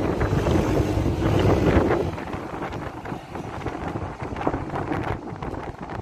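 Strong gusty wind buffeting the microphone, a low rumbling roar of noise that is loudest in the first two seconds, then eases a little and keeps gusting.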